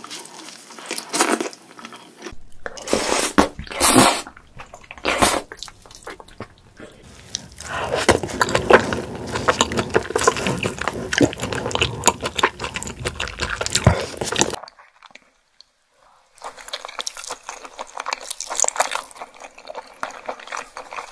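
Close-miked eating of raw crab: wet chewing and slurping as the meat is pulled from the legs into the mouth, with many sharp clicks. It comes in separate cuts, broken by a second or two of silence about fifteen seconds in.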